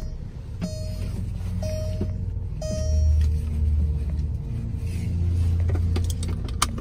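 2003 VW Beetle's dashboard warning chime dinging about once a second, three times, then stopping, over a low rumble in the cabin. A few sharp clicks come near the end.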